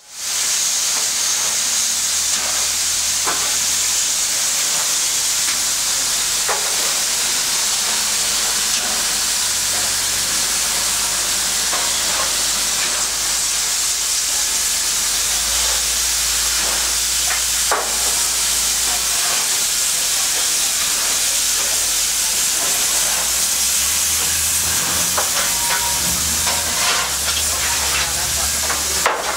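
NSWGR 38 class 4-6-2 Pacific steam locomotive 3801 standing in steam, with a steady loud hiss of escaping steam and a few faint clicks.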